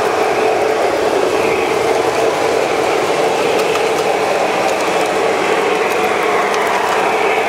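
O-gauge three-rail model trains running: a steady whir of their electric motors and gearing, with wheels rolling over the metal track and faint scattered clicks.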